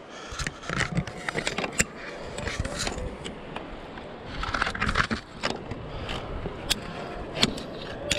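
Climbing safety gear being handled: metal carabiners clicking and clinking, with webbing lanyard slings scraping and rustling against the head-mounted camera.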